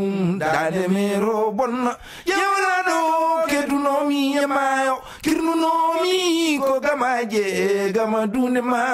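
A Fulani griot's solo male voice singing in long, wavering held notes. The phrases break for short breaths about two seconds and five seconds in.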